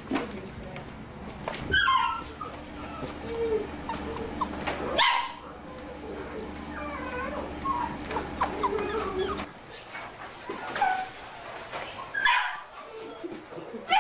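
Puppies in wire crates barking, yipping and whimpering, with many short calls overlapping one another.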